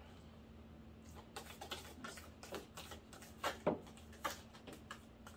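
Deck of tarot cards shuffled by hand: a run of irregular soft clicks and taps, with a few louder snaps a little past the middle.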